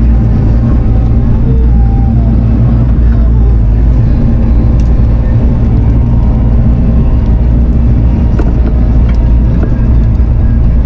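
Diesel engine of a Bobcat compact machine running steadily at working speed, close and loud, with a few light clanks.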